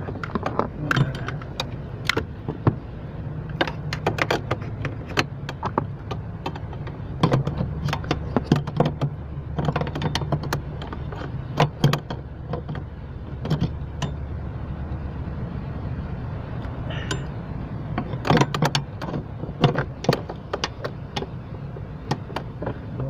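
Ratchet and socket on an extension bar working the clutch master cylinder's mounting nuts on the pedal bracket: irregular metallic clicks and clanks, some in quick clusters, over a steady low hum.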